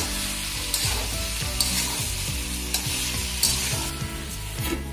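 Mixed vegetables sizzling in oil in a metal kadai while a metal spatula stirs them, with about five scraping strokes against the pan over the steady sizzle.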